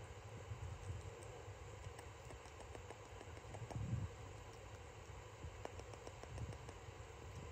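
Faint close-up handling noise: a low rumble with soft, small clicks scattered throughout and one louder low bump about four seconds in.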